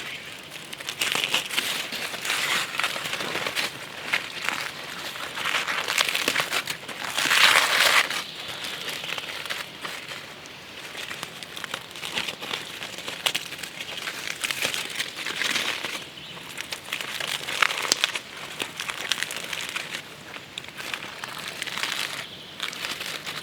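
Uneven crinkling and rustling with scattered crackles, swelling louder a few times, most strongly about seven seconds in.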